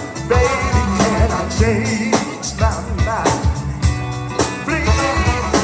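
A band playing a song with a lead singer over drums and backing instruments.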